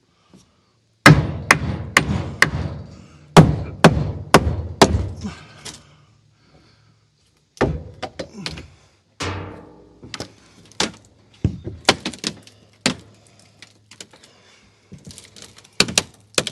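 Timber shipping crate being knocked apart: loud wooden knocks and thuds, two quick runs of about four strikes each, then scattered knocks.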